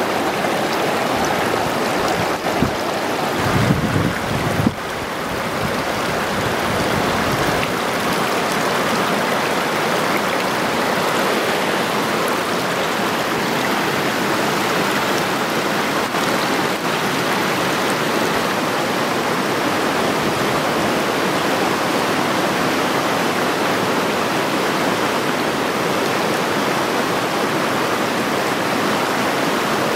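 Steady rush of river water flowing fast over rapids, with a brief louder low rumble about three seconds in.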